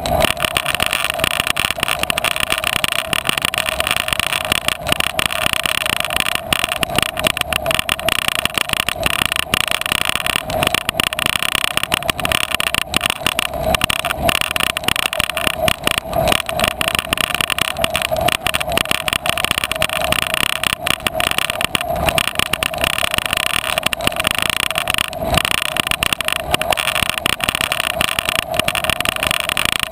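Bicycle ridden over a rough grass-and-dirt trail: steady tyre and wind rumble with constant small knocks and rattles from the bumpy ground, picked up by a camera mounted on the bike.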